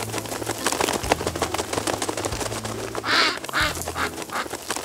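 Duck quacking twice in quick succession about three seconds in, over a busy clatter of rapid short taps.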